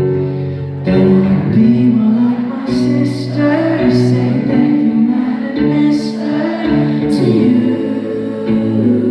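Live pop concert performance: singing over instrumental backing, the song playing on without a break.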